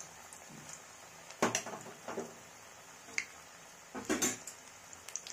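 Spoonfuls of masala peanut pakora batter frying in hot oil in a kadai: a steady sizzle, with a few louder, sharp clattering bursts, the biggest about one and a half and four seconds in, as more batter goes in.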